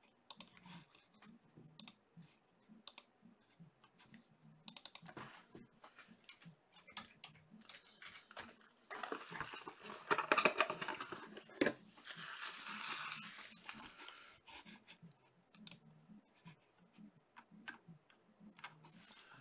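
Trading card boxes and wrappers being handled and opened: scattered light clicks and taps, then a louder stretch of crinkling and tearing wrapper from about nine to fourteen seconds in.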